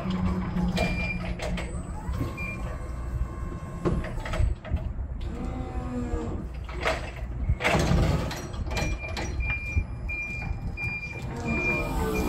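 Forklift running while unloading pallets: steady engine rumble with clunks of forks and pallets and a wavering whine midway. About two-thirds of the way through, its warning beeper starts, beeping about twice a second.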